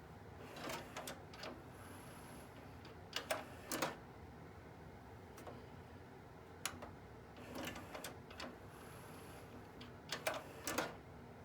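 Onkyo DX-C200 five-disc CD changer mechanism working through two similar cycles of clicks and short clacks, with a faint high whir in the middle of each cycle.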